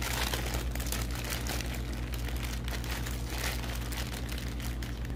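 Thin clear plastic bag crinkling and rustling as hands pull it open over a bowl of food, in a continuous run of crackles, with a steady low hum underneath.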